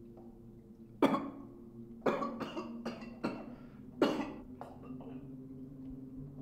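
A man coughing in rough, harsh fits: one cough about a second in, a quick run of four coughs from about two seconds, and two more a little after four seconds, over a steady low droning tone.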